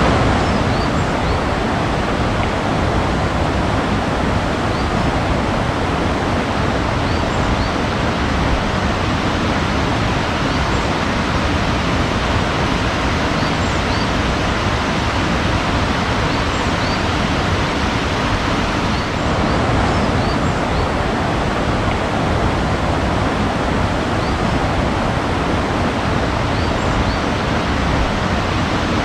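Steady rushing water, a dense even wash of noise without pause, with faint high bird chirps now and then above it.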